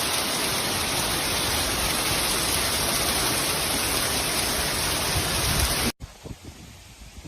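Heavy rain pouring down in a severe thunderstorm, a loud, steady hiss. It cuts off abruptly about six seconds in, giving way to much quieter wind and rustling.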